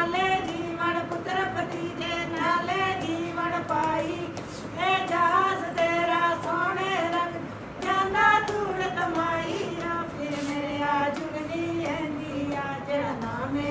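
Two women singing together, holding long notes that waver in pitch.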